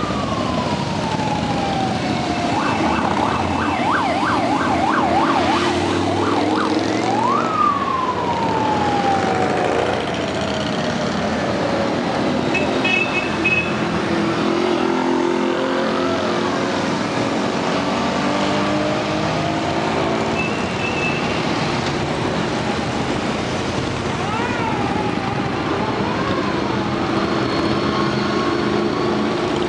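Harley-Davidson V-twin motorcycles riding past at low speed, engines running steadily one after another. Over the first dozen seconds a siren warbles rapidly up and down, then rises once and winds slowly down.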